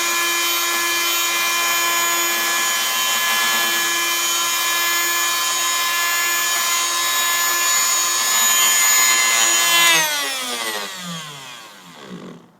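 Fein oscillating tool with a corner sanding pad, its motor running steadily while sanding. About ten seconds in it is switched off, and the motor winds down over the next couple of seconds with a falling pitch.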